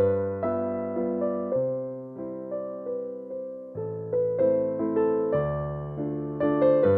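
Background music: a gentle piano melody, with notes struck at about two to three a second, each ringing and fading.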